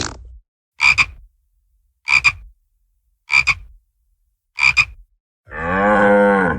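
Cartoon library sound effects: four short, evenly spaced frog croaks, each a quick double pulse, followed near the end by a cow's moo of about a second that rises and falls in pitch. The tail of another effect fades out at the very start.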